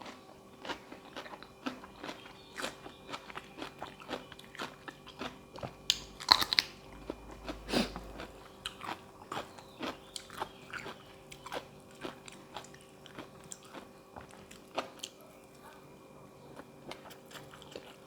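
A person eating close to the microphone: crunchy bites and chewing in irregular crunches a couple of times a second, the loudest about six seconds in. The food is a spicy seafood salad eaten with fresh vegetables such as raw cabbage.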